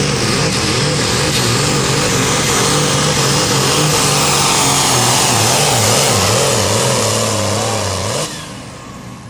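Hot farm pulling tractor's diesel engine running flat out under load as it drags the weight-transfer sled, its pitch wavering up and down. The sound drops off suddenly near the end.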